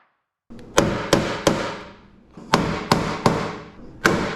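Hammer striking metal in quick sets of three, about eight blows in all, each with a short ringing tail.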